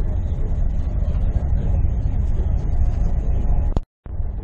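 Steady low rumble of a moving vehicle heard from inside the cabin while travelling at speed. The sound cuts out completely for a moment near the end.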